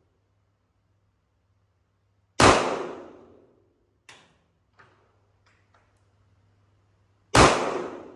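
Two shots from a Sig Sauer 1911 Spartan pistol firing .45 ACP full metal jacket rounds, about five seconds apart. Each is a sharp bang with a short echoing tail. A few much fainter clicks fall between them.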